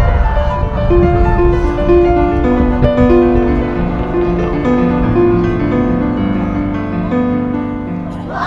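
Background music: slow piano-like keyboard notes, each held for a long moment, stepping from one note to the next.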